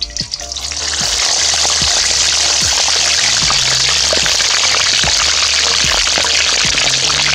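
Whole chicken frying in a pan of hot oil: a loud steady sizzle with crackles and pops, building up over the first second as the bird goes into the oil. Background music with a low repeating beat underneath.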